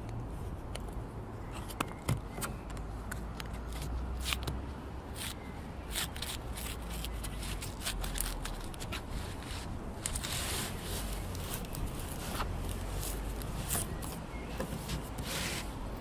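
Wind rumbling low and steady on a Zoom H2n recorder's windscreened microphone, with many scattered clicks and short rustles over it.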